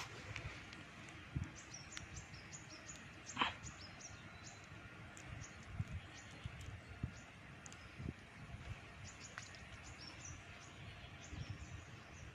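Faint outdoor evening ambience with small animals chirping: runs of quick, high-pitched chirps repeating throughout, over low bumps, and one louder short sound about three and a half seconds in.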